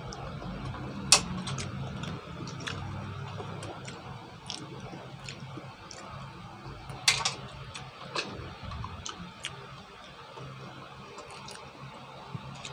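Mussel shells clicking and clinking as they are handled and eaten from a steel pan: scattered small clicks, with a sharper clack about a second in and another about seven seconds in.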